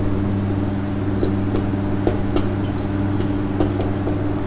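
A steady low electrical hum runs throughout. Over it come a few faint taps and short squeaks of a marker writing on a whiteboard.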